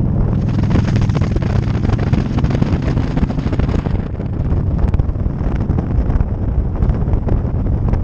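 Heavy wind noise buffeting the microphone over a motorcycle engine running steadily while riding. The wind is stronger in the first half.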